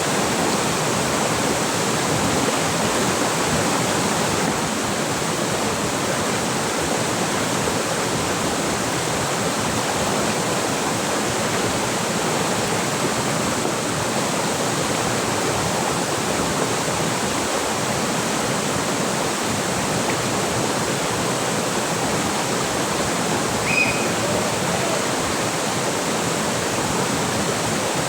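Steady rushing of river water. A brief high chirp sounds once, about three-quarters of the way through.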